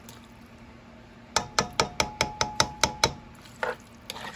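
A cooking spatula knocking against a nonstick wok: a quick, even run of about ten knocks, the pan ringing faintly under them, then one more knock. A low steady hum runs underneath.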